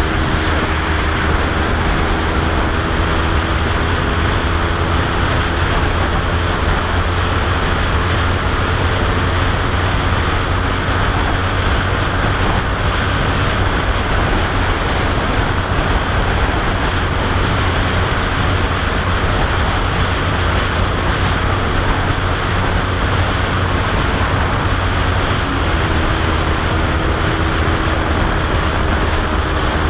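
Sport motorcycle cruising at steady highway speed, heard from the rider's position: a steady engine drone under heavy wind rush on the microphone. The engine note shifts slightly late on.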